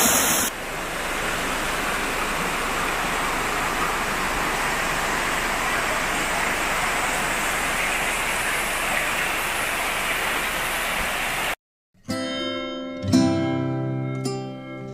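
Steady rush of white water from a river cascading over rock, cutting off abruptly about twelve seconds in. Guitar music with plucked notes then begins.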